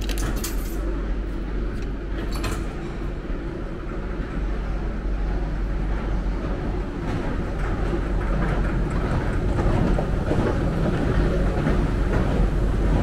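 Steady low rumble of a metro station's machinery, growing louder over the last few seconds. Within the first three seconds come a few sharp clacks from a tripod turnstile being unlocked with a card and pushed through.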